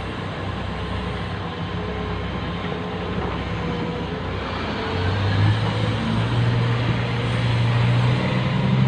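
Heavy diesel earthmoving machine's engine running steadily, then revving up and getting louder about five seconds in as it takes on load.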